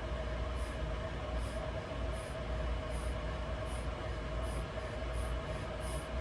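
Quick, regular breaths, a soft hiss a little more than once a second, over the steady hum and rumble of a room fan and a heater.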